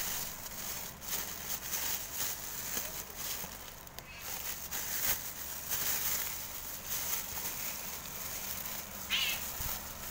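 Thin clear plastic bag crinkling and rustling as it is pulled and unwrapped from around a cardboard takeout box, in an irregular run of small crackles.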